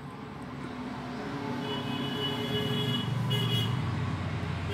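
Road traffic: a motor vehicle's engine rumble swelling through the second half, with steady high-pitched tones over it that start about a second and a half in and break off briefly.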